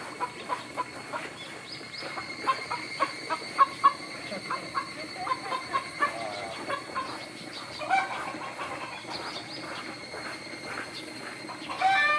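Shrine chickens clucking in quick series of short clucks, with a longer call about eight seconds in and a loud squawk near the end. Higurashi cicadas sing faintly behind them in a steady high tone.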